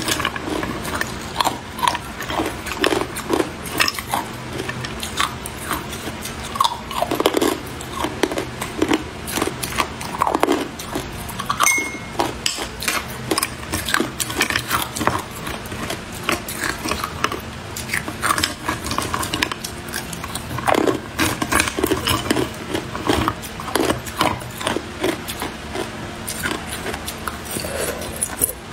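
Hard ice crunched and chewed between the teeth, with ice cubes clinking and a metal spoon scraping in a glass. Dense, irregular crackles and knocks go on throughout.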